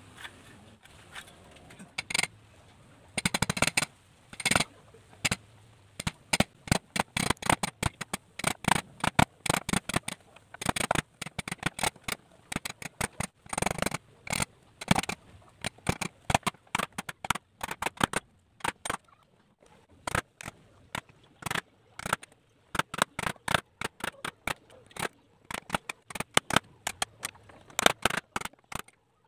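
Wood chisel struck with a hammer in irregular runs of sharp knocks, chopping out a mortise in a pallet-wood board. The blows start about two seconds in and go on with brief pauses.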